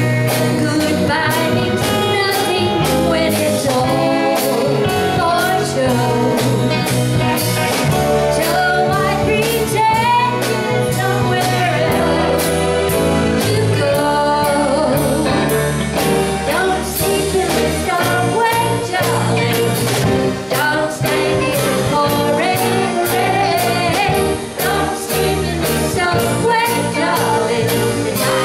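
Live band: a woman singing lead into a handheld microphone over electric guitar and a drum kit keeping a steady beat.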